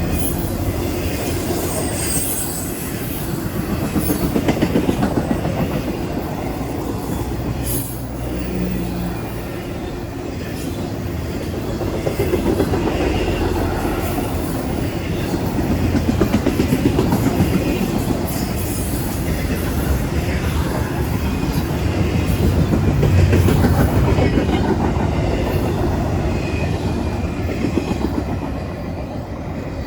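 CSX freight train's cars rolling by: a steady rumble of wheels on rail with a clickety-clack over the joints and some wheel squeal.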